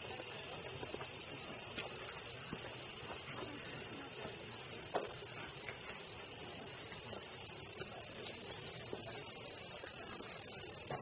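A chorus of cicadas droning steadily, a dense high-pitched buzz that does not let up, with a few faint scattered clicks underneath.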